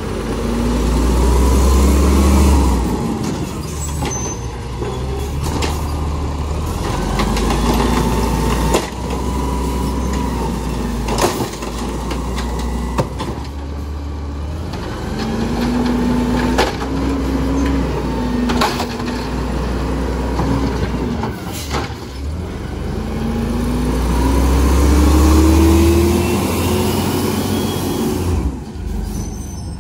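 Automated side-loader garbage truck emptying curbside carts: the diesel engine revs up three times to drive the hydraulic arm, with rising hydraulic whines, and sharp bangs as the carts are slammed and shaken against the hopper.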